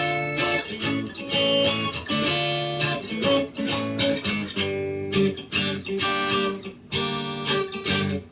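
Guitar played in plucked notes and strummed chords, a rough home recording.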